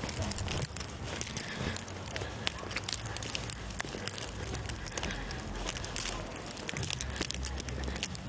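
Dense, irregular crackling and ticking, many small clicks a second, over a low rumble.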